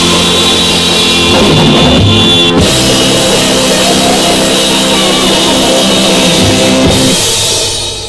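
1965 rock single with drum kit and guitar, closing on a long held chord with cymbal wash that starts to fade out near the end.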